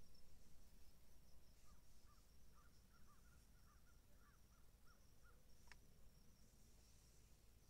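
Faint dawn countryside ambience, near silence: a steady high trill of crickets, with a string of faint bird calls in the middle and a single sharp click near the end.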